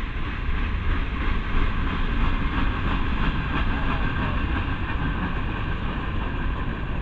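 Freight cars of a Norfolk Southern train rolling past: a steady rumble and clatter of steel wheels on the rails.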